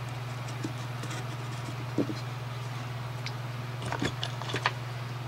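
A few light clicks and taps of a Lionel postwar knuckle coupler and its metal frame being handled and set down on a table: one sharp click about two seconds in, then a quick cluster of small taps near the end, over a steady low hum.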